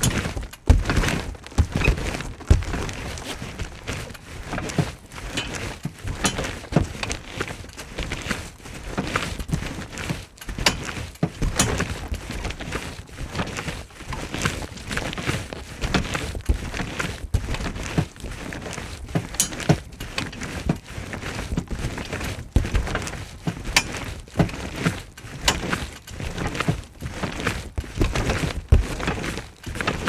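Jumping on a trampoline: repeated, irregular thumps of the bouncing mat, a few a second.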